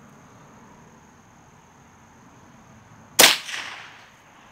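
.22 air rifle firing a single shot, a sharp loud crack about three seconds in that dies away over about a second. The 3D-printed steel-core Waymaker pellet is moving at about 1,196 feet per second, supersonic, so the shot is louder than a .22 long rifle.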